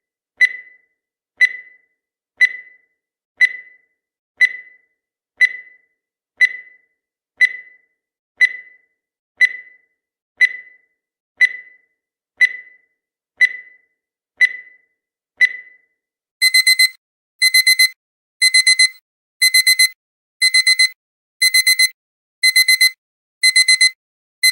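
Countdown timer sound effect: a short electronic pip once a second, then about 16 seconds in the countdown reaches zero and a digital alarm-clock beeping starts, bursts of rapid beeps repeating about once a second.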